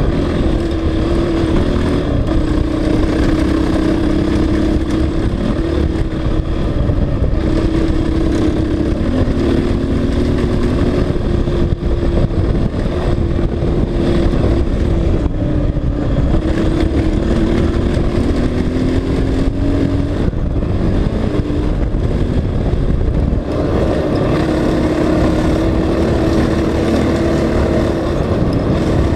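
Honda CRF450X's single-cylinder four-stroke engine running at riding speed over a steady low rumble. Its pitch dips and comes back up a few times as the throttle is eased and reopened.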